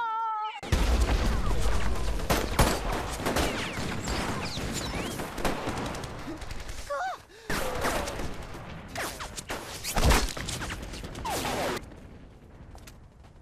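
A volley of gunfire from many guns at once bursts in suddenly about a second in. It carries on densely for around eleven seconds with a brief lull in the middle, with voices crying out among the shots, and stops near the end.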